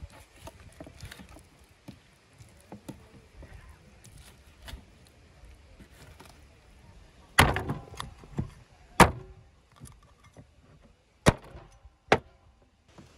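Serrated knife faintly scraping and sawing against bone as meat is cut from a sheep's jawbone on a wooden board. Then, in the second half, four loud sharp knocks on the wooden cutting board.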